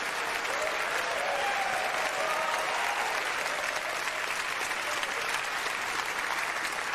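Theatre audience applauding steadily, with a voice or two rising faintly above the clapping in the first few seconds.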